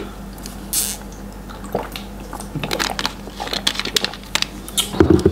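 Sipping and swallowing tea from a glass mug, with small wet mouth clicks and lip smacks, and a low thump near the end.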